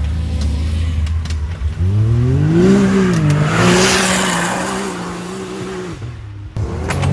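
Can-Am Maverick X3 side-by-side with an HMF dual Titan exhaust, its three-cylinder turbo engine revving up hard about two seconds in and held high as it slides past, spraying dirt. The engine note drops off about six seconds in and climbs again near the end.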